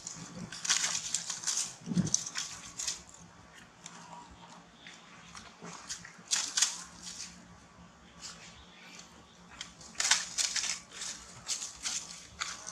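Young macaques squealing and screeching in repeated high-pitched bursts as they wrestle, with dry leaves rustling under them. The cries come in three clusters: at the start, around the middle, and again near the end.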